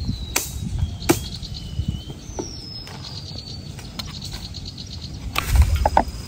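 Thin, slowly falling whistles of bird calls over scattered light knocks and clicks. Near the end comes a louder clatter and glugging as cooking oil is poured from a bottle into a wok.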